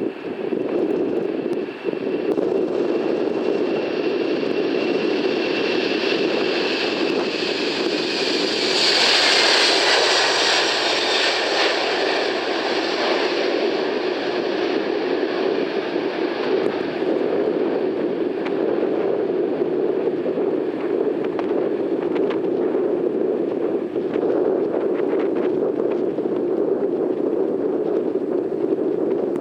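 Jet airliner passing close: a steady engine roar with a high fan whine that falls in pitch as it goes by, loudest about nine or ten seconds in, then the roar carrying on as the aircraft moves away.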